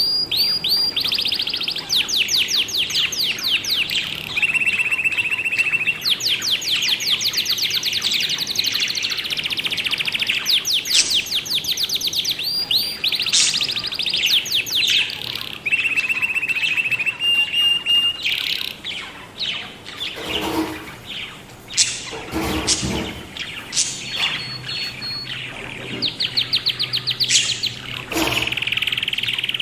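Budgies chirping in fast runs of evenly repeated chirps, with short held whistled notes in between. A few sharp knocks or scuffs come about two-thirds of the way through.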